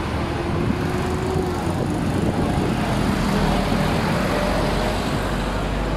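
Street traffic noise: a steady rumble and hiss of motor vehicles passing on the road.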